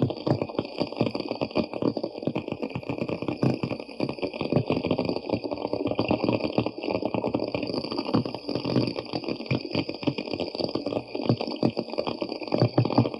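Crabs making their clicking, bubbling noise: a dense, continuous crackle of many small irregular clicks with a wet, gurgling quality.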